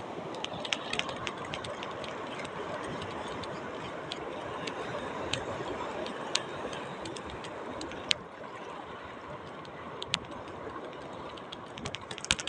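Ryobi 1000 spinning reel being cranked on a lure retrieve, giving scattered sharp ticks over a steady wash of water and wind; the ticks bunch together near the end.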